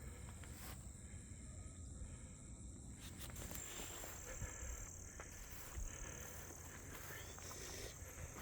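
Faint, steady high-pitched chorus of insects such as crickets, over a low rumble of wind on the microphone.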